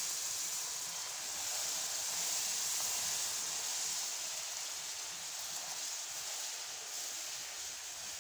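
Hot caramelized sugar sizzling and bubbling in a frying pan as milk is poured in slowly and stirred: a steady hiss that eases off a little toward the end.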